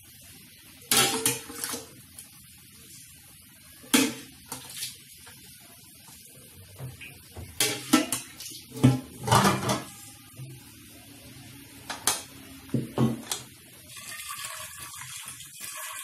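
Aluminium couscoussier and pot knocking and clanking as they are handled, with several separate sharp metal knocks. A steady hiss sets in near the end.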